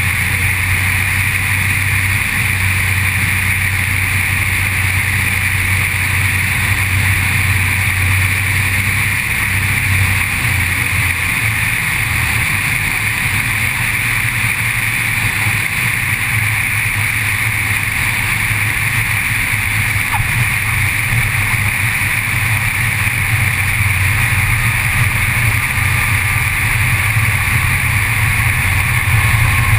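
Cessna 182's engine and propeller drone steadily beneath heavy, even wind rush over a camera mounted outside on the wing.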